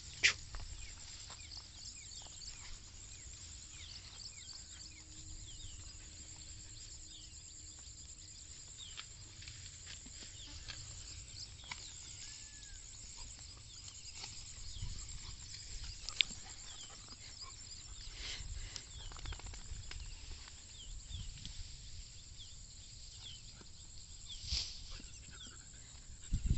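Quiet open-field ambience: a steady high-pitched chirping trill in the background over a low rumble, with a few scattered light clicks and rustles.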